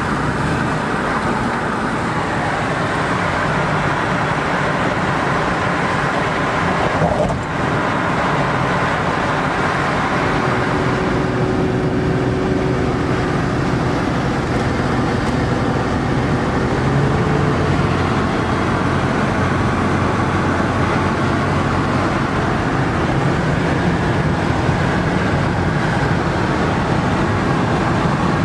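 A car driving on a highway, heard from inside: steady tyre and engine noise, with a short break about seven seconds in.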